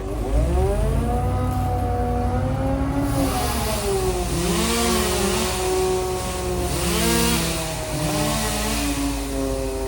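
Engines running, one with its pitch repeatedly dropping and climbing back over a steady low hum, several times through the stretch.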